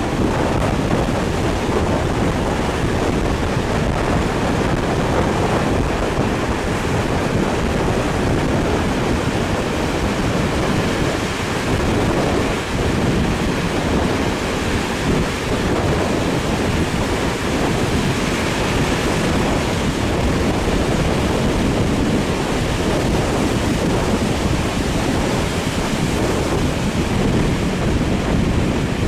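Wind rushing over the microphone, held out of the window of a moving train, with the train's running noise under it.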